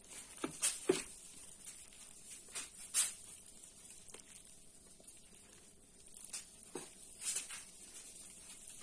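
A spoon stirring flour into thick Easter bread dough in a bowl, with irregular scrapes and knocks of the spoon against the bowl.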